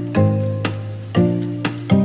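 Background music: plucked or struck notes with a sharp attack, about two a second, over a held bass.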